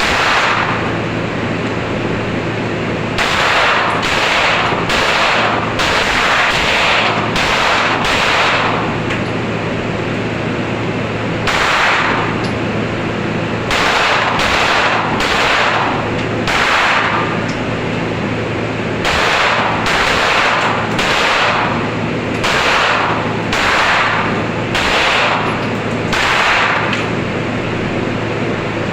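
Gunshots at a shooting range: single shots and quick strings of several shots, a little over half a second apart, with pauses of a few seconds between strings. A steady low hum runs underneath.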